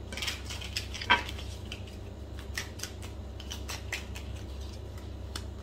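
Tarot cards being shuffled and handled by hand: an irregular run of short papery snaps and flicks, the sharpest about a second in.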